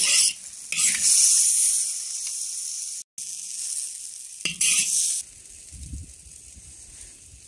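Hot oil sizzling loudly in a steel wok, with a few sharp scrapes of the metal spatula as the stir-fry is scooped out. There is a brief break just after three seconds, and the sizzling dies down to a faint hiss after about five seconds.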